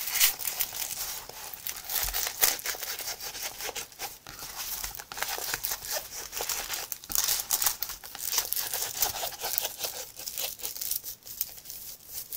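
Rolled diamond painting canvas and its paper wrapping crinkling and crackling continuously as it is rolled backwards against a tabletop to flatten the curl of the poured-glue canvas.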